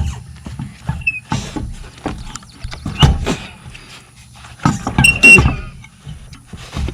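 Several separate clunks and knocks, with some scraping, as a spare wheel and tire is lifted and worked onto the hub studs. A short cluster of metallic clinks comes about five seconds in.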